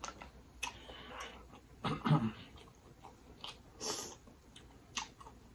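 Close-miked eating sounds from a mouthful of buttery lobster tail meat: chewing, lip smacks and sucking of sauce off the fingers. Scattered clicks, with a louder wet burst about two seconds in and another near four seconds.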